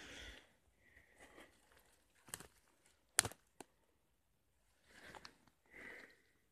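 Footsteps and rustling through moss and leaf litter on a forest floor, a shuffling burst about every second, with one sharp crack a little past three seconds in.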